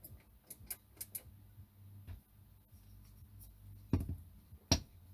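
Handling of a small UV curing light at a workbench: a run of light clicks in the first couple of seconds, then two louder knocks near the end, over a faint steady hum. The light is not switching on.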